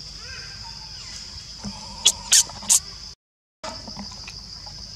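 Steady high-pitched forest insect drone. About two seconds in, three short, sharp, high squeaks stand out loudly above it. Just after, the sound cuts out completely for about half a second.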